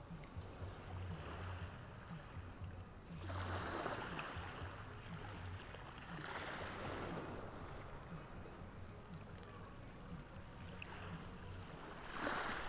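Ocean waves washing onto the shore, each wave swelling up and falling back, with three louder washes a few seconds apart.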